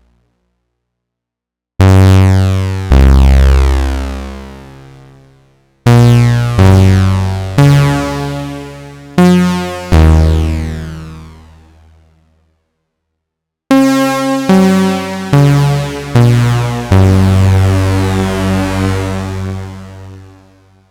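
Vectra software synthesizer playing a unison-stacked patch: three short phrases of bass-heavy notes, each struck sharply and decaying, with silent pauses between. The final note is held and fades out near the end.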